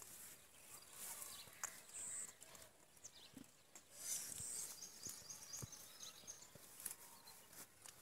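Faint outdoor ambience: soft high chirps and scattered light clicks, with no clear call.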